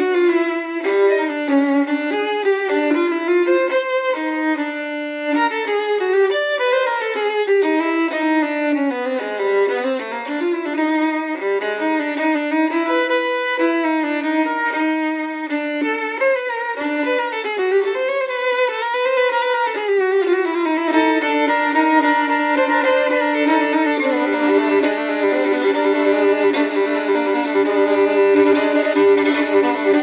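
Background music: a violin playing a melody, settling into longer held notes about two-thirds of the way through.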